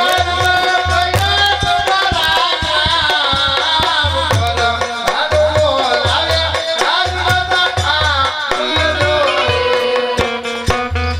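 A man singing a folk melody into a microphone, amplified through loudspeakers, over a steady beat of drums and other percussion.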